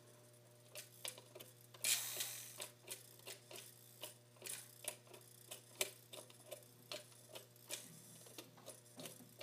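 Lionel postwar O-gauge train running on the layout track: a steady low hum with light, evenly spaced clicks about one and a half per second. The tender's whistle does not sound, which the owner puts down to still-dirty pickups.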